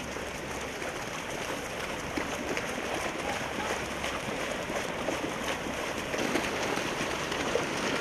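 Many runners splashing through shallow seawater about 30 cm deep: a steady wash of splashing with no single sound standing out.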